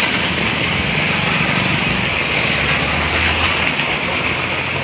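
Steady hiss of rain and car tyres on a wet street, with the low hum of a car engine swelling around the middle as vehicles pass.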